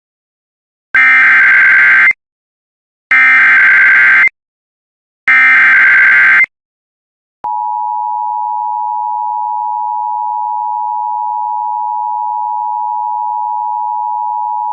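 Emergency Alert System alert opening: three one-second bursts of buzzing SAME header data, a second apart, then the steady two-tone attention signal from about halfway through, announcing a severe thunderstorm warning.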